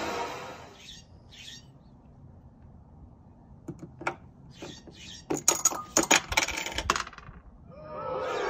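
A beer bottle cap is pried off on a wall-mounted bottle opener, then the metal cap rattles down through the wooden pegs of a plinko board in a quick run of sharp clicks lasting about two seconds. Near the end the board's built-in sound effect starts playing.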